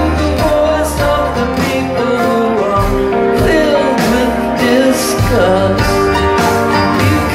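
A live band playing loudly: drums, bass and string instruments, with a voice singing a melody that bends in pitch.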